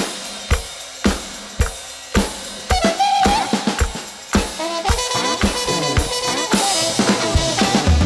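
Soundtrack music: a drum kit beat with kick and snare and held pitched notes, sparse at first and filling out about halfway.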